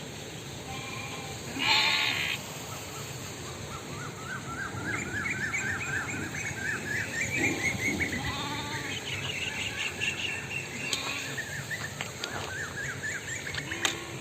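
Goats bleating: one loud bleat about two seconds in, then fainter bleats later, over a long run of quick, repeated high chirps.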